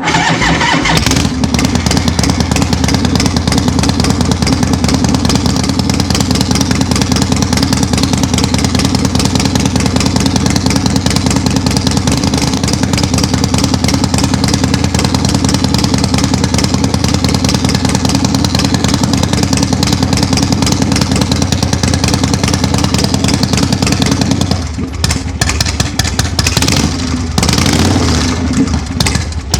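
Harley-Davidson Shovelhead V-twin running loud through a freshly fitted Zodiac shotgun exhaust, a steady rapid beat of firing pulses. About 25 seconds in the level drops and wavers up and down for the rest.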